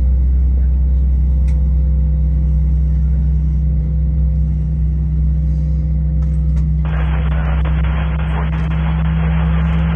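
Steady low drone inside an Airbus A321's cabin at the gate, before the engines are started. About seven seconds in, a radio feed with a hard, tinny bandwidth cuts in over it.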